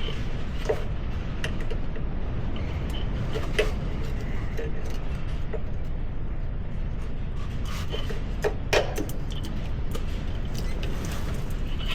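Steady low rumble with scattered sharp knocks and clicks, two of them close together about eight and a half seconds in.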